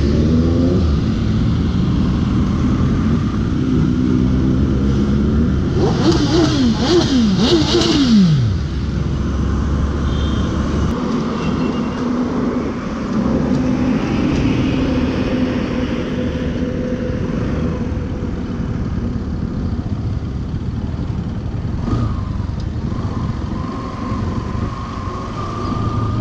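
Motorcycle engine running under way, with a few quick falling rev sweeps and a burst of rushing noise about six to eight seconds in, then steadier running.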